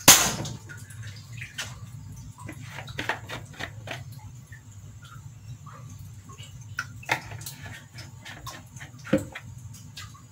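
Cooking oil poured from a plastic bottle into an aluminium wok, with dripping, pouring sounds over a steady low hum and scattered small ticks. A sharp knock right at the start, and a couple of louder clicks later on.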